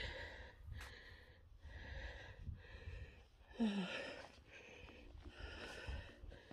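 A hiker breathing hard, drawing breath in and out about once a second, with a short voiced breath or grunt about four seconds in and a low rumble underneath.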